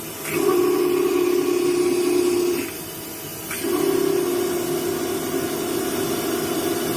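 Mazak Integrex 100 IISY CNC turn/mill centre running, with a steady mid-pitched tone over a hiss. The tone starts sharply, cuts out after about two seconds, and comes back about a second later.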